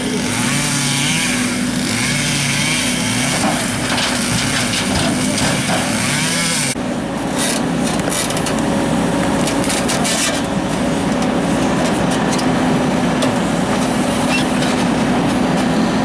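MST backhoe loader's engine running steadily under working load as the hydraulic arm works. After about seven seconds there are short knocks as the bucket digs into soil around a tree's roots.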